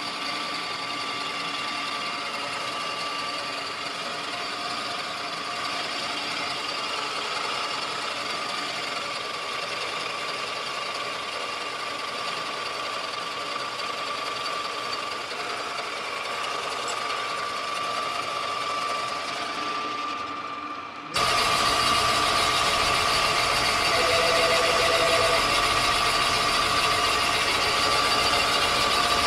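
Rottler cylinder boring machine running, its boring bar cutting a cylinder in a Chevy small-block V8 block: a steady machine hum with a high whine. About twenty seconds in it suddenly gets louder.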